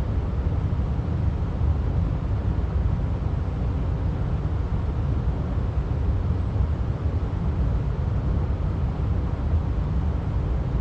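Steady low rumbling rush of water pouring through a spillway, mixed with wind buffeting the microphone.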